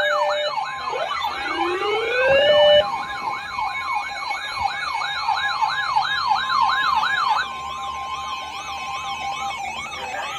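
Electronic sirens layered together: a fast yelp sweeping up and down about three times a second, rising wail sweeps in the first three seconds, and a steady tone underneath. The whole gets quieter about seven seconds in.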